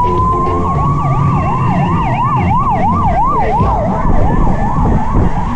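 Several sirens sounding at once: a slow wail that rises and then eases off, overlapped by a fast up-and-down yelp, over a low rumble of passing vehicles.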